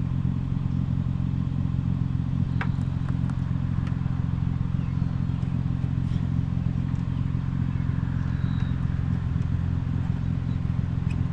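Vehicle engine idling steadily as a low hum, with a few light clicks over it.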